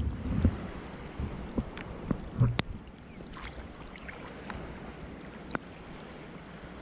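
Shallow sea water sloshing and splashing around someone wading through it, with a few sharp knocks and splashes in the first couple of seconds, then a steady rush of water noise.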